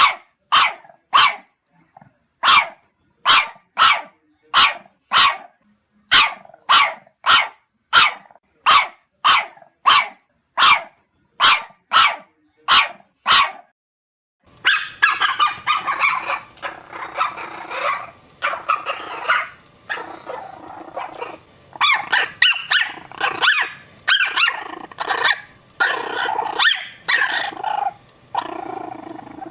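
Puppy barking: for about the first half, a run of short, sharp barks at an even pace, a little under two a second. Then, after a cut, a noisier recording of denser, overlapping barking and yipping.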